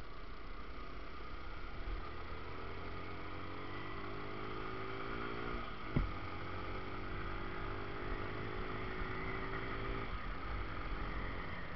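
Yamaha Factor motorcycle's single-cylinder four-stroke engine accelerating, its pitch rising, then a sharp click about six seconds in as the engine note drops and rises again through the next gear. About ten seconds in the throttle closes and the engine note falls away, with a low wind rumble on the microphone throughout.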